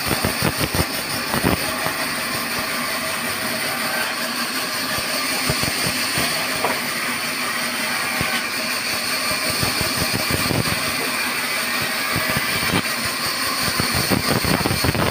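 Large sawmill band saw ripping a short log lengthwise: a steady high whine from the running blade over dense cutting noise. Knocks from the wood being handled come near the start and again near the end.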